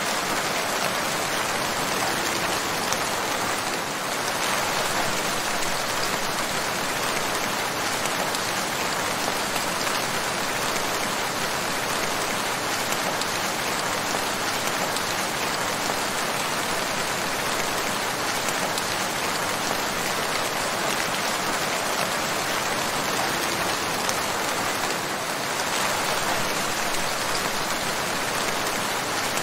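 Steady rain falling, a dense even hiss of many drops that holds at the same level throughout.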